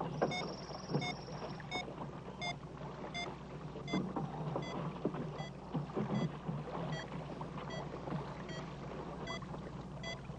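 A regular train of short electronic beeps, about three every two seconds, from an underwater acoustic tracking transmitter on a manatee, picked up by a hydrophone receiver. A low, noisy rumble runs underneath.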